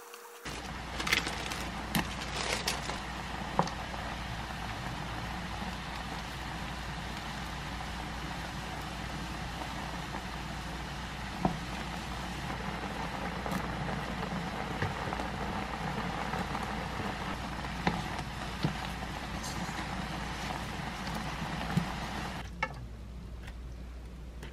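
Thick rose tteokbokki sauce bubbling and sizzling in a nonstick frying pan, over a steady low hum, with a spoon now and then clicking against the pan as it is stirred. The bubbling stops about 22 seconds in, leaving the hum.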